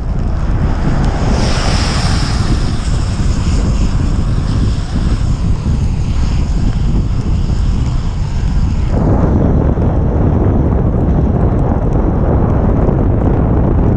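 Heavy wind buffeting the microphone of a bicycle descending fast on a wet paved road, mixed with the hiss of Kenda K-Rad tyres on the wet asphalt. A higher hiss fades out about nine seconds in, and the low rumble of the wind grows heavier.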